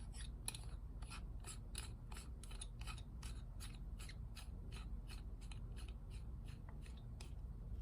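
Rapid, even run of small clicks, about three to four a second, from the air cap collar being screwed onto a Fuji Spray M spray gun; the clicking stops near the end.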